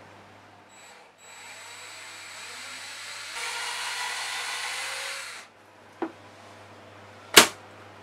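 Cordless drill running as it bores a hole in a pine board, with a steady whine; it gets louder about three seconds in and stops after about four seconds. A small click and then a single loud knock follow near the end.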